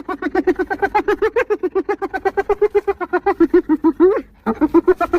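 Spotted hyena giggling: a fast run of short, pitched 'hee-hee' notes, about nine a second. The run breaks off briefly near the end, then starts again with a rising note.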